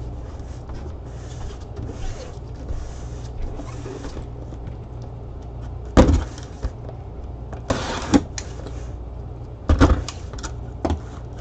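Cardboard box being handled and opened by gloved hands: soft rubbing and sliding, a sharp knock about six seconds in, a scrape of cardboard near eight seconds and a few knocks near ten seconds, over a steady low hum.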